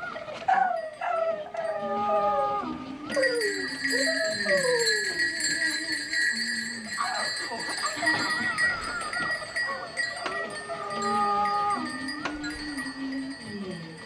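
Wordless female singing in overlapping voice lines, with wavering vibrato, long held notes and slow sliding falls in pitch. A steady high ringing tone comes in about three seconds in and holds beneath the voices.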